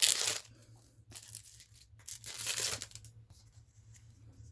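Foil wrapper of a Pokémon trading-card booster pack rustling and tearing in three short bursts, the first the loudest.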